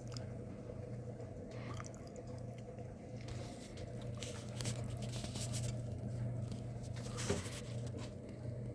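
Harbor Breeze Alaska 42-inch ceiling fan running, its motor giving a steady low hum with a faint higher whine, over scattered light clicks and crackles; one sharper click comes about seven seconds in.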